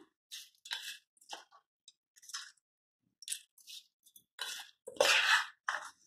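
Soaked basmati rice being tipped from a steel bowl into a stainless steel pressure cooker: wet grains sliding and dropping in several short rushes, the biggest about five seconds in.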